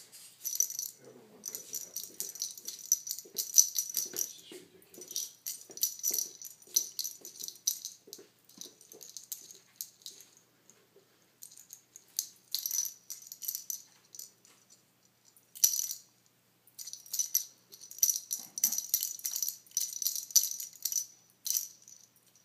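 Plastic cat-toy ball with a rattle inside, hanging on a line with a feather, rattling in quick irregular bursts as a kitten bats at it, with short pauses between bursts. Soft knocks are mixed in during the first half.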